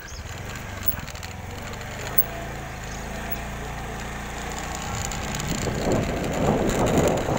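Small motorcycle engine running at a steady speed, then wind rushing over the microphone takes over and grows louder about five and a half seconds in.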